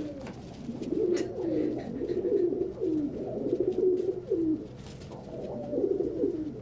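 Several pigeons cooing in overlapping, repeated low phrases, with a few faint clicks.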